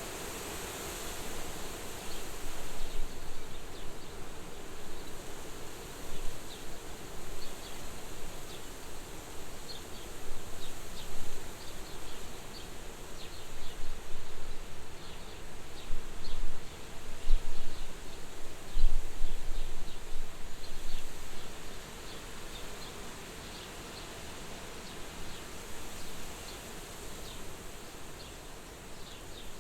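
Wind gusting at a farmhouse window, swelling and easing, strongest a little past the middle with a low buffeting rumble. Faint, rapid high chirps run through it.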